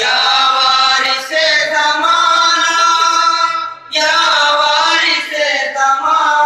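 Men's voices chanting a noha, a Shia lament, in long sustained sung phrases, with a short break about four seconds in.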